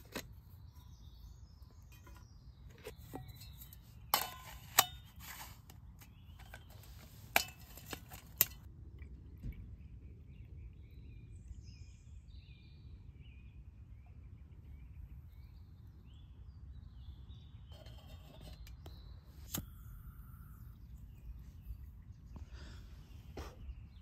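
Quiet woodland background with a steady low rumble and faint bird chirps, broken by a few sharp clicks and clinks, the loudest about four to five seconds in and again around seven to eight seconds.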